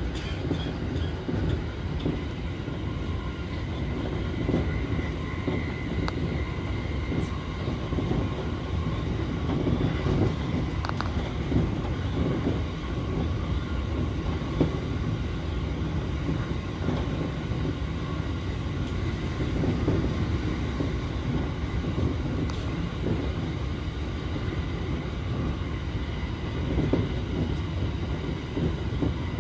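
Tokaido Line electric commuter train running, heard from inside the front car: a steady rumble of wheels on rail with a faint steady whine above it, and a few light clicks.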